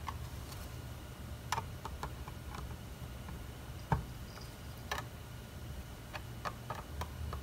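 Scattered light clicks and taps of a clear acrylic case and its small screws being handled and driven in with a screwdriver, with one sharper knock about four seconds in.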